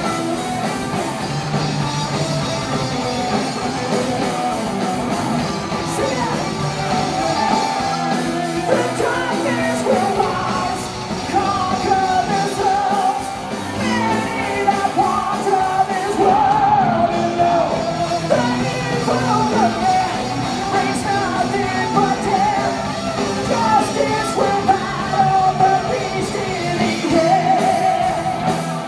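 Heavy metal band playing live: electric guitars, drums and keyboard with a singer's vocals over them.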